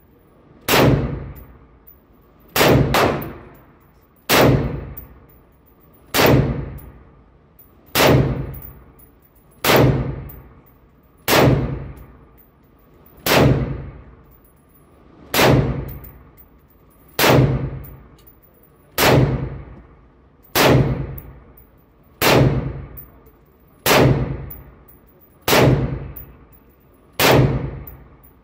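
Slow, steady semi-automatic fire from a 5.56 rifle: single shots about every two seconds, with one quick pair early on. Each shot rings out and echoes off the walls of an indoor range.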